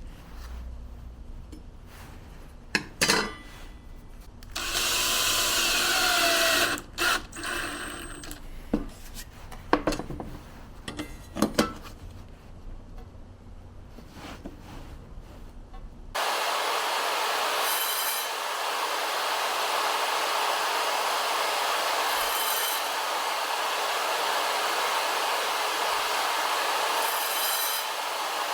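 Knocks, clicks and a brief scrape of a tool being handled, then, starting suddenly about halfway through, a track saw running steadily through test cuts in wood with its freshly sharpened blade.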